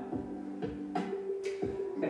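Background music: a few held notes over light, sparse percussion.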